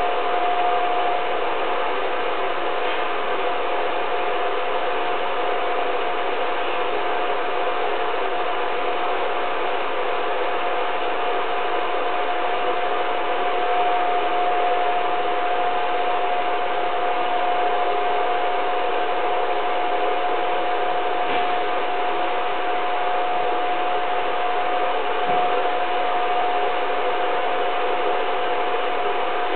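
A film projector running: a steady mechanical whir with a constant mid-pitched hum under it and no other change.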